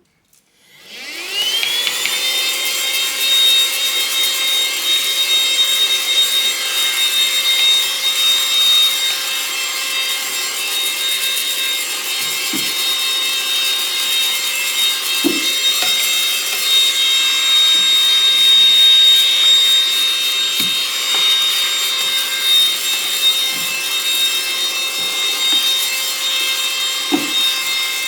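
Baseus A1 cordless handheld car vacuum switched on: its small motor spins up within about a second to a steady high whine over a rush of suction air. A few light knocks sound as the nozzle touches the surface.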